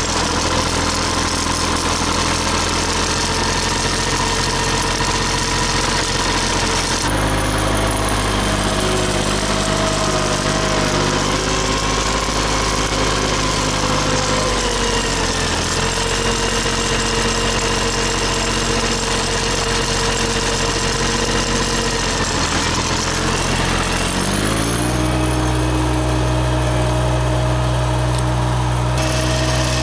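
John Deere 750 compact tractor's three-cylinder diesel engine running steadily as the loader works, its speed shifting a few times and rising to a higher pitch about 25 seconds in.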